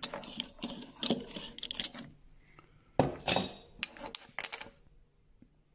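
Wooden blocks and a metal clamp being handled and set down on a wooden workbench: a run of wooden knocks and metal clinks, loudest about three seconds in, dying away near the end.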